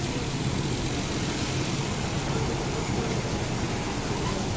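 Automatic car wash running: a steady rushing noise over a constant low machine hum.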